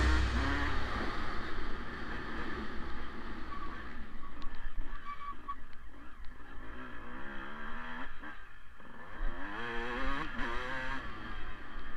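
Motocross dirt bike engine heard from on the bike, its pitch rising and falling repeatedly as the rider opens and closes the throttle around the track, with a steady rumble underneath.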